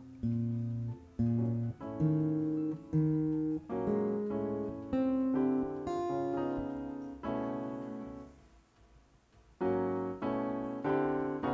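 A keyboard with a piano sound plays a slow run of chords and single notes, each one ringing and fading. The playing pauses for about a second late on, then comes back in.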